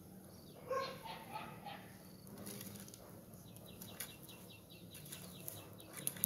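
A hoe chopping into dry soil, two sharp strikes near the end, with a chicken clucking about a second in and a small bird chirping in a fast run of short calls.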